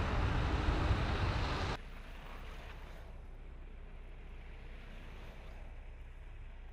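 Wind noise on the microphone, cutting off sharply about two seconds in. A quieter, steady low rumble of vehicles driving slowly through falling snow follows.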